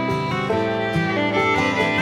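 Background music: a fiddle playing a lively melody over guitar accompaniment.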